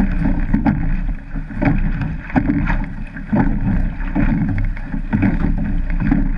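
Surf boat being rowed hard: water rushing along the hull, wind buffeting the boat-mounted microphone, and repeated sharp knocks from the oars working in their rowlocks, roughly once or twice a second.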